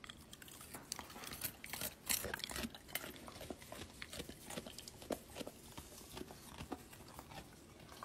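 A sheepadoodle crunching a piece of carrot: faint, irregular crisp crunches and clicks.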